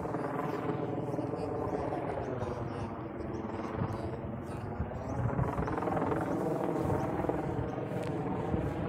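A helicopter flying overhead, a steady drone of many layered tones whose pitch sags slightly and then rises again, getting a little louder about halfway through.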